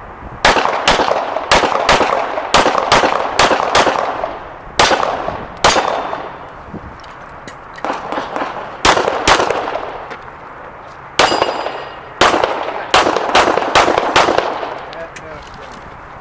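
Single-stack semi-automatic pistol fired in quick strings of shots, mostly pairs, with short pauses between strings, each shot loud with a ringing echo. The firing starts about half a second in and stops about two seconds before the end.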